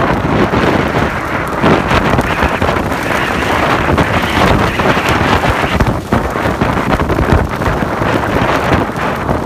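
Strong gusting wind buffeting the microphone: a loud, continuous rushing that rises and falls without a break.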